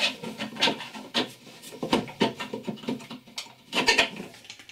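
Irregular knocks, clicks and scrapes of wood and screw hardware as a wooden steering mount is fastened to a wooden kayak hull with screws.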